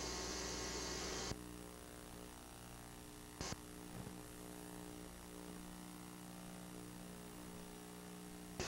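The steady hiss of an old videotape recording cuts off about a second in, leaving a low electrical hum with a sharp click and a fainter one after it, until the hiss comes back at the very end. This is a dropout or gap between recordings on the home-video tape.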